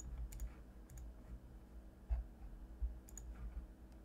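A few scattered clicks of a computer mouse over a low steady background hum.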